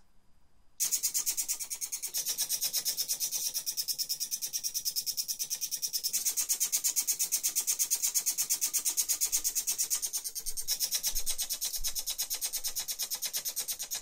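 Split-flap display modules rolling their flaps through a full revolution: a rapid, even clatter of flaps snapping over one after another, starting about a second in.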